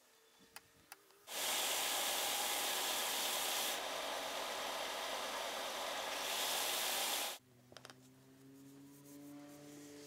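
Bench belt sander running with a wooden try square held against the moving abrasive belt: a steady, even sanding noise that starts suddenly about a second in and cuts off abruptly about six seconds later. Before it come a few light clicks as dowels are fitted into the joint.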